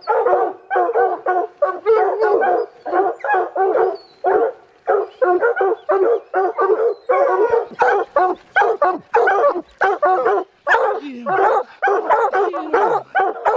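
Hunting hounds baying treed at the foot of a pine: rapid, overlapping barks with hardly a pause, the hounds' tree bark that signals their quarry, here a mountain lion, is up the tree.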